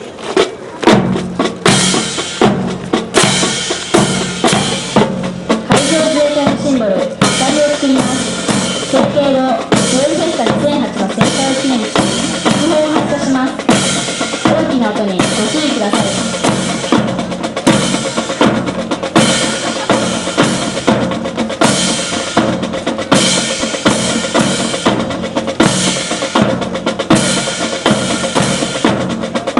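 Drum-led music: a drum kit with snare, bass drum and rimshots keeping a steady beat, with a melodic line over the drums from about six seconds in.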